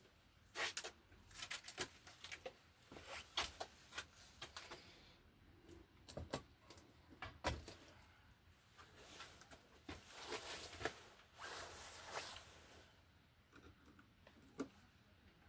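Faint, scattered clicks, scrapes and rustles of hands handling wires in an electrical box, with a few longer swishes near the end.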